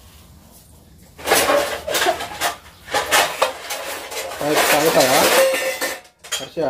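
Steel pots and plates clattering as they are handled in a metal basin, in bursts starting about a second in, mixed with indistinct voices.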